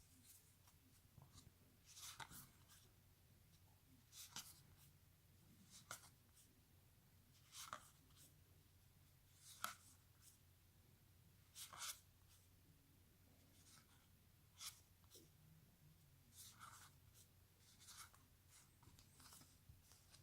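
Trading cards being slid off a stack one at a time by hand: a faint, short papery swish about every two seconds.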